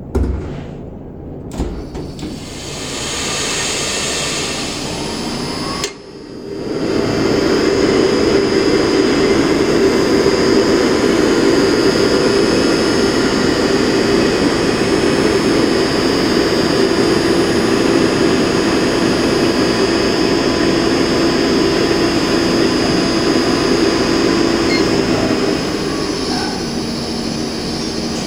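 Kyudensha convection oven's fan motor running with a steady whir and hum, carrying a slight abnormal noise from the motor. A click about six seconds in brings it up to a loud steady speed, and about 25 seconds in it steps down to a quieter, lower-pitched setting as the fan speed is turned down.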